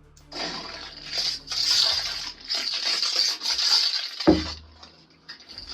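Lightsaber sound-font effects played through the saber's speaker: a low hum with several hissing swing sounds, then one sharp loud clash about four seconds in.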